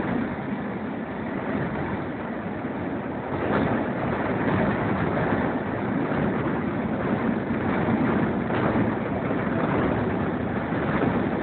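Steam-hauled train running at speed, heard from an open carriage window: a steady rumble of wheels on rails mixed with rushing wind, growing a little louder about a third of the way in.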